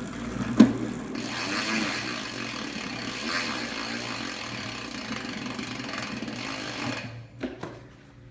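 Bicycle drivetrain fitted with a CeramicSpeed chain and bearings, spun by hand and running freely with a steady, even noise. There is a sharp click about half a second in, and the noise dies away with a few small knocks about seven seconds in.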